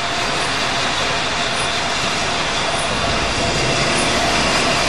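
LNER Peppercorn Class A1 4-6-2 steam locomotive No. 60163 drifting slowly into a station, a steady hiss of steam from its open cylinder drain cocks, growing gradually louder as it approaches.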